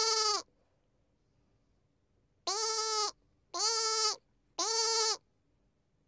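Lamb bleating: the tail of one call just at the start, then three short bleats in quick succession from about two and a half seconds in, each about half a second long with a slight quaver in the pitch.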